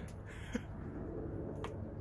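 Chickens pecking at food on a wooden deck: two light, sharp taps over a low steady background.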